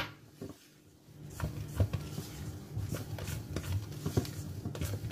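A spatula folding cake batter in a stainless steel bowl, with soft scraping and small taps against the bowl's side starting about a second in.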